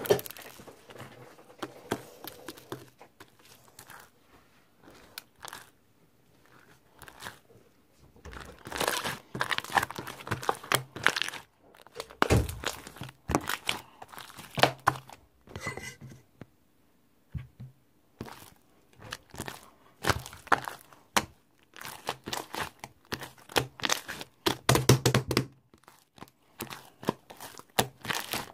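Irregular crackling and crinkling handling noises, clustered in bursts with quieter gaps between them.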